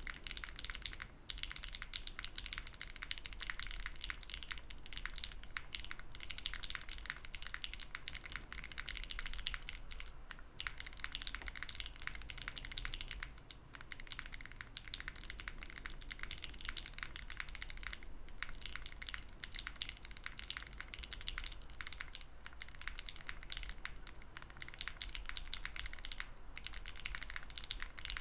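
Continuous fast typing on a Hera R2 mechanical keyboard with lubed LOGA Nomyen switches on a POM plate: a dense, soft clatter of keystrokes, with a short lull about halfway through.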